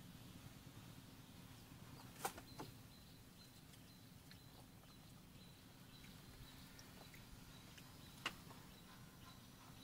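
Near silence: faint outdoor background with a steady low hum and a faint high thin tone, broken by a few sharp clicks, two close together about two seconds in and one more near the end.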